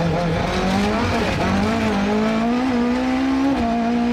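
Rally car engine pulling hard under load, heard from inside the car: the engine note rises, drops briefly about a second in as a gear changes, then climbs again and holds high with only small dips.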